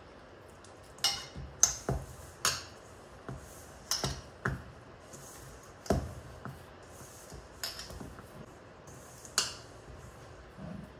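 Hands mixing crumbly maida dough in a stainless-steel bowl while water is worked in, with irregular sharp clicks and knocks against the steel bowl, about nine in all.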